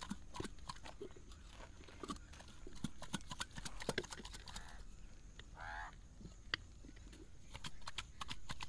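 Masala-coated chicken pieces knocking and shifting inside a lidded clay pot as it is tilted and shaken to mix, giving scattered light knocks and clicks. A bird calls once, briefly, about six seconds in.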